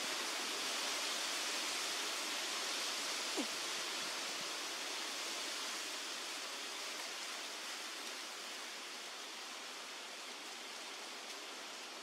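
Steady, even outdoor background hiss that slowly gets quieter. A single brief faint chirp about three and a half seconds in.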